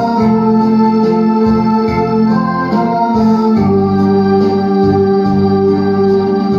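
Instrumental break of a backing track: an organ-like electronic keyboard holding sustained chords over a bass line, the chord changing a little past halfway.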